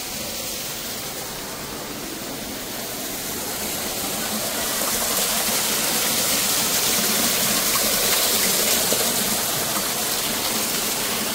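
Water from a small artificial waterfall pouring down a rock wall: a steady splashing rush that grows louder about halfway through.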